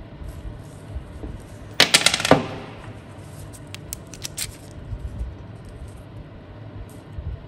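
Small metal parts clattering: a quick rattle of rapid knocks lasting about half a second, a couple of seconds in, then a few light clicks.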